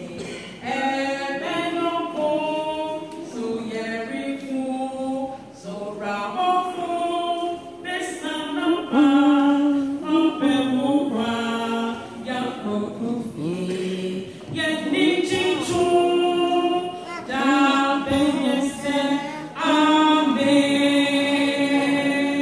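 A choir of men and women singing a cappella, in short phrases with sustained held notes.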